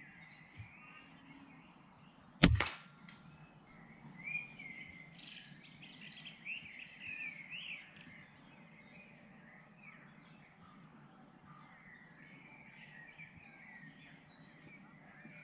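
A single shot from a .177 FX Impact X air rifle, one sharp crack about two and a half seconds in. Small birds chirp throughout.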